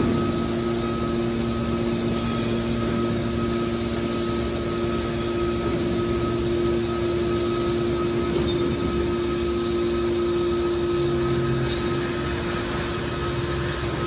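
Hydraulic scrap metal baler's power unit running under load with a steady hum and whine as its hydraulic cylinder swings the lid closed over the press box. A lower hum joins about three quarters of the way through.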